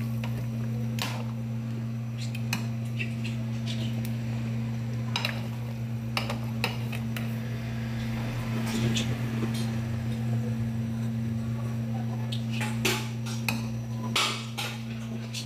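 Metal ladle stirring stew in an aluminium pressure cooker, clinking and scraping against the pot several times, over a steady low hum.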